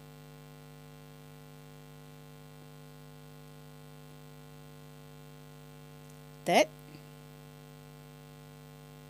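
Steady low electrical mains hum, a buzz of several unchanging tones.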